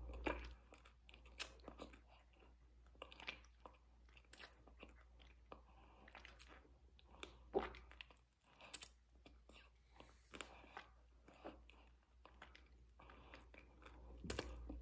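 Close-up chewing of a crunchy mouthful, with irregular crisp crunches between quieter chewing; the sharpest crunches come about seven and a half seconds in and near the end.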